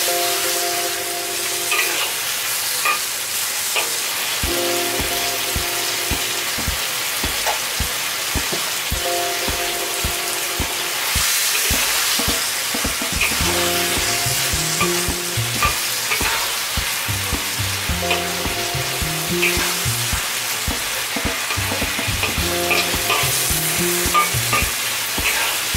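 Pork chops and sliced onions sizzling in sauce in a wok, stirred and turned with a spatula that scrapes and taps against the pan.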